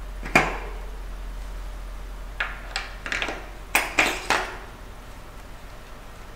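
A single ringing knock as a front wheel is seated into the suspension fork's dropouts, then a run of short metal clicks and taps as a 15 mm thru-axle is pushed through the hub and engaged.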